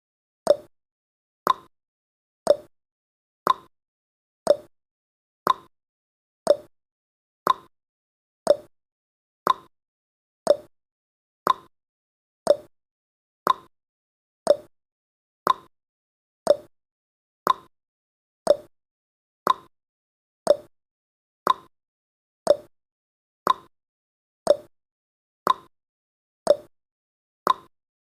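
Countdown timer's ticking sound effect: a sharp clock-like tick exactly once a second, alternating slightly higher and lower in pitch like a tick-tock.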